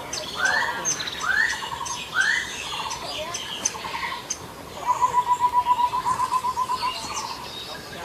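King bird-of-paradise calling: three rising slurred whistles, then about halfway through a fast run of short repeated notes at about seven a second. Faint high ticks sound throughout.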